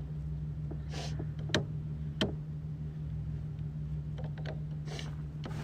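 Two sharp metallic clicks, about half a second apart, from a jumper-cable clamp being handled at a car battery terminal, with short rustles of glove and jacket, over a steady low hum.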